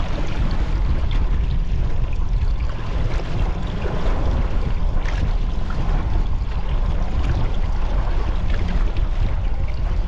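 A boat trolling on open water: steady wind rumbling on the microphone, mixed with the wash of water around the hull.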